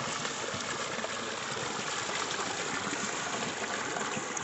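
Steady gush of running water, used to wash the onions, green chillies and ginger.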